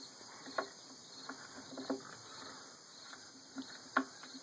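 Two Boston terrier puppies chewing and pawing at a cardboard carpet tube: scattered light taps and scratches of teeth and claws on the cardboard and the wooden deck, the sharpest tap near the end.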